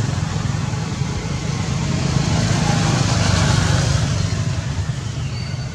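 A steady low rumble with an even hiss above it, easing a little near the end.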